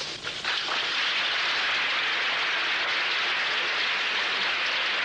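A large audience applauding: a dense, even clatter of clapping that builds up about half a second in and then holds steady.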